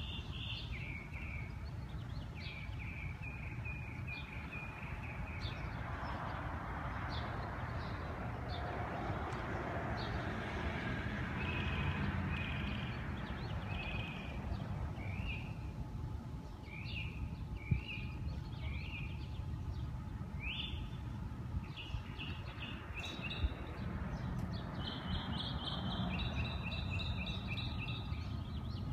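Small birds chirping throughout, short quick notes repeated in runs, over a steady low outdoor rumble. Two sharp clicks sound partway through.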